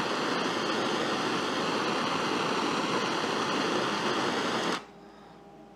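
Handheld gas torch flame hissing steadily, then cutting off suddenly near the end, leaving only a faint room hum.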